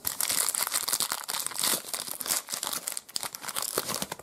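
Foil trading-card pack wrapper crinkling and tearing as it is ripped open by hand, a dense crackly rustle.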